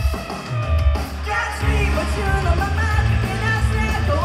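Live rock band playing amplified electric guitars and drums; a woman's singing voice comes in about a second in and carries on over the band.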